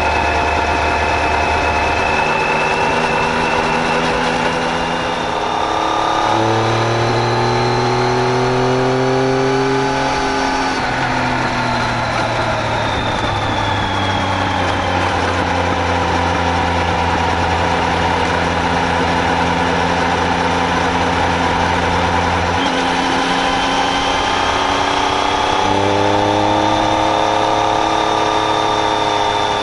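Triumph Tiger 800XC's three-cylinder engine running on the road. Its note climbs and falls with the throttle and shifts in steps a few times as the gears change.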